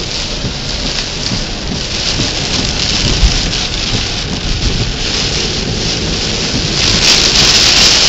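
Heavy rain coming down hard: a dense, steady hiss with a low rumble beneath it and a single sharp knock about three seconds in.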